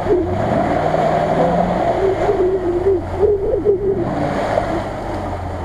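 Land Rover Discovery's engine running steadily under load as the truck churns through deep muddy water, with the wheels stirring and splashing the water.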